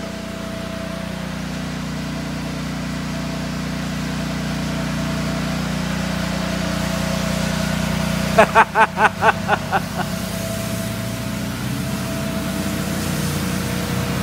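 Small gasoline engine driving an AR-45 diaphragm roof-cleaning pump, running steadily under load while its hose gun sprays. About eight seconds in, a short run of about eight quick voice-like pulses sounds over it.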